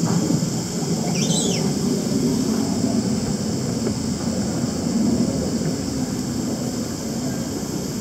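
Steady low rumble with a constant high hiss, and one short chirping bird call about a second in.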